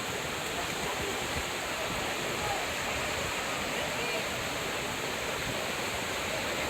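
Steady rush of flowing water, like a small hillside waterfall or stream, with faint voices in the background.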